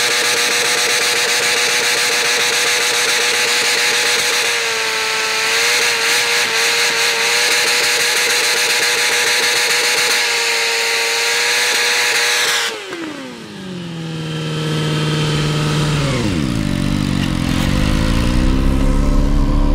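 Sport motorcycle engine held at high, steady revs during a burnout. About two-thirds of the way in, the revs fall away sharply, drop again a few seconds later, and the engine settles into a lower, louder running note.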